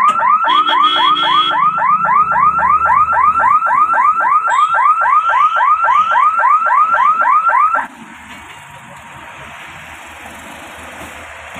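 Electric warning siren at a railway level crossing, repeating a rising whoop about three and a half times a second, then cutting off suddenly about eight seconds in. A quieter steady hiss follows.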